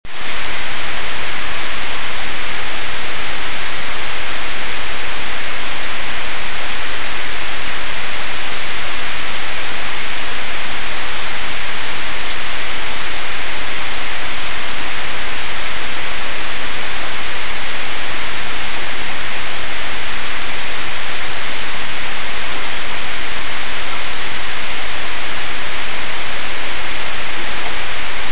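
Heavy rain falling steadily on leafy trees and a wet paved driveway: a loud, even hiss with no breaks.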